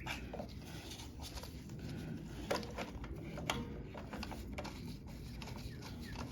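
Small clicks and taps of lawn mower engine parts being handled and fitted by hand during reassembly, with two sharper clicks about two and a half and three and a half seconds in.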